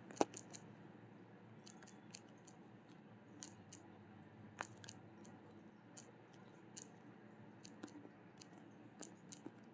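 Faint, irregular clicks and taps of typing on a smartphone's touchscreen keyboard, over low room hiss.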